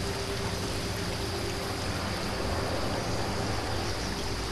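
Steady rush of flowing water, an even hiss without breaks, with a faint steady hum under it.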